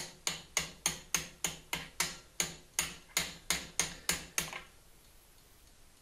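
Claw hammer lightly tapping a 1-inch socket to drive a sealed cartridge bearing into a Gary Fisher Evolution press-fit bottom bracket shell: a quick, even run of ringing metallic taps, about three a second, that stops about four and a half seconds in.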